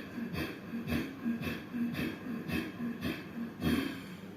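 A man doing ujjayi breathing: rapid, forceful breaths through the nose with throat friction, about two sharp strokes a second, stopping shortly before the end.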